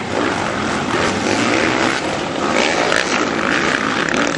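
Several motocross bikes' engines revving at once, blending into one steady sound.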